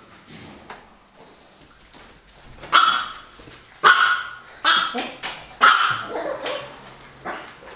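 Excited dog barking: after a quieter start, about four loud, short barks in quick succession from about three seconds in, and a fainter one near the end.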